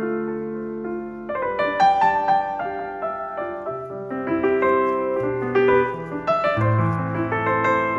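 Background piano music: a gentle, continuous melody of notes played one after another.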